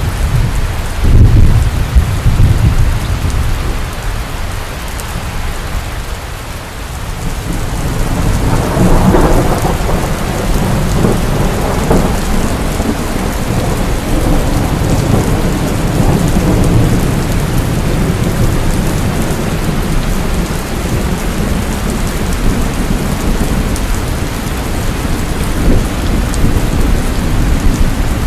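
Heavy rain falling steadily with thunder: a loud low clap about a second in, then a long rolling rumble that builds from about eight seconds in and carries on under the rain.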